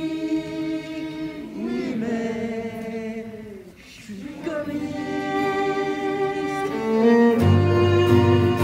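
Live music: a bowed string instrument playing slow, long held notes, with a brief pause partway through. Low bass notes join near the end.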